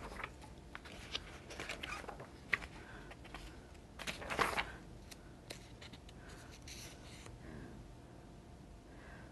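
Faint handling noise: soft rustles, scrapes and small clicks, with one louder rustle about four seconds in.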